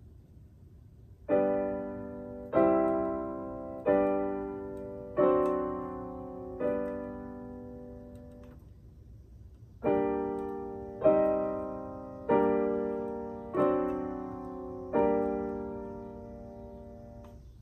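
Piano playing slow, held chords: five struck about a second and a half apart, each left to ring and fade, a short lull, then five more, the last ringing out.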